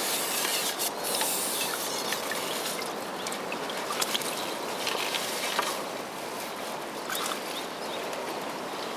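Water trickling and sloshing at a riverbank over a steady hiss, with a few small sharp splashes and ticks as a hooked fish is drawn into a landing net.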